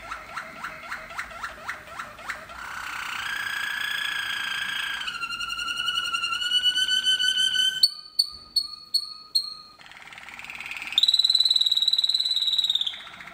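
Canary singing a song of distinct tours: a fast ticking trill, then held rolls that step up in pitch, a run of short separate chirps about eight seconds in, and a long loud roll near the end.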